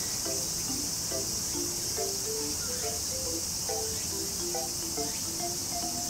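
Steady high chorus of chirring crickets, with a soft melody of short notes stepping up and down in pitch over it.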